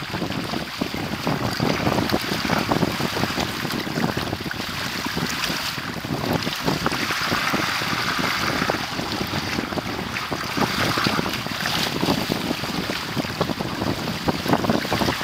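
Water rushing and splashing against the hulls of a Hobie Tandem Island sailing trimaran running downwind through choppy waves, with wind buffeting the microphone.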